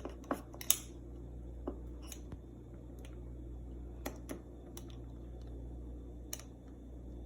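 Knife cutting through a refrigerator ice-maker water tube: irregular sharp clicks and scrapes, a few seconds apart, over a steady low hum.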